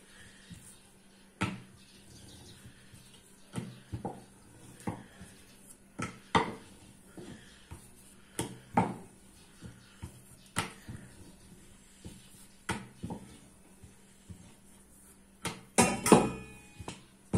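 Wooden rolling pin clacking and knocking against a wooden rolling board as roti dough is rolled and turned: sharp knocks every second or two, with a louder cluster of clatters near the end, over a faint steady hum.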